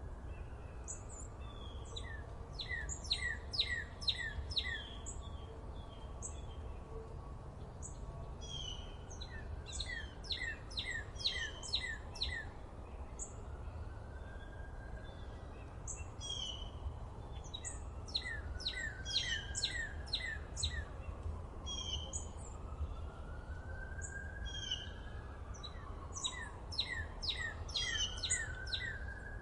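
Songbirds singing: one bird repeats a quick run of sharp, falling notes about four times, with scattered calls between and a slower rising-and-falling whistle in the second half, over a steady low rumble.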